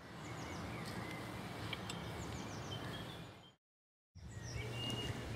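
Water running down a small stone garden cascade as a steady rush, with small birds chirping several times over it. The sound cuts out for about half a second near the end, then comes back.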